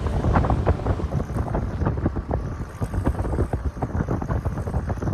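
Low vehicle rumble with wind buffeting the microphone and many irregular short crackles and knocks.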